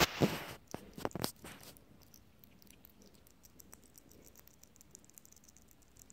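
Pet hedgehog eating soft puréed chicken baby food from a ceramic dish: faint, quick wet chewing and lapping clicks. A louder bump and rustle comes in the first second, with a few sharp clicks about a second in.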